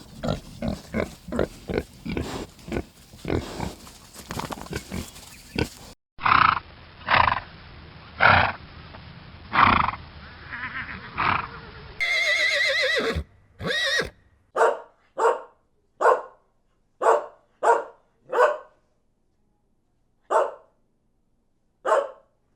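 Farm animal calls from several clips cut one after another: about six seconds of rapid, dense calls, then a slower run of about five calls, then a wavering whinny-like horse call about twelve seconds in, followed by a string of short separate calls.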